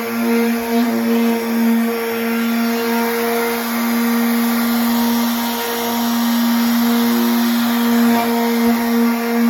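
Power sander running steadily against a Jeep Wrangler TJ's painted steel door with 80–100 grit paper: a constant motor whine over the hiss of the abrasive, scuffing the finish before a bedliner coating.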